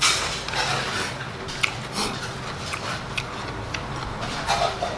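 Metal chopsticks stirring and lifting noodles in a bowl, with scattered light clicks as they touch the bowl, over a faint steady low hum.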